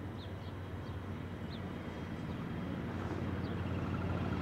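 Diesel engines of an approaching pair of Pacific National NR class diesel-electric locomotives, a steady low hum that grows gradually louder. A few faint bird chirps sound over it.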